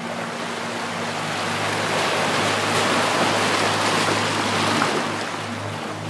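A wave washing in: the rush of water builds over about two seconds, holds, then falls away about five seconds in. A low steady hum runs underneath.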